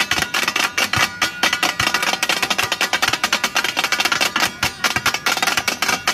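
Several steel spatulas clanging and scraping on a large flat steel tawa as the dal fry is chopped and mixed. The strikes come fast and dense, several a second, and the metal rings between them.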